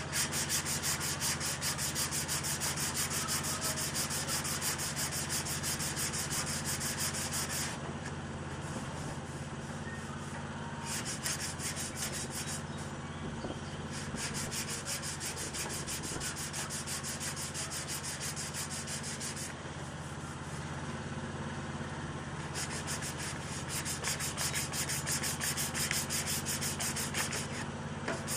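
150-grit sandpaper worked by hand over dried body filler on a car panel, rapid back-and-forth scratchy strokes leveling the filler, with two short breaks in the sanding, about eight seconds in and about twenty seconds in.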